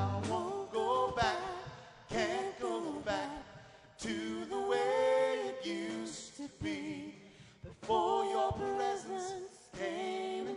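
A man and a woman singing a worship song unaccompanied, in phrases with short breaks between them; the keyboard accompaniment drops out.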